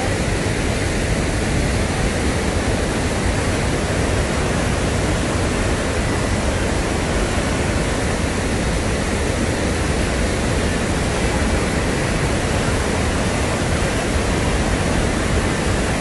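Loud, steady roar of a river in flood pouring over a wide rocky waterfall and churning through brown rapids.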